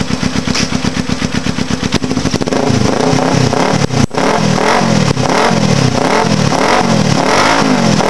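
1982 Suzuki GS300's parallel-twin engine through short drag pipes, idling with a choppy, pulsing beat. About two and a half seconds in, the throttle is blipped over and over, the revs rising and falling in quick waves a little more than once a second.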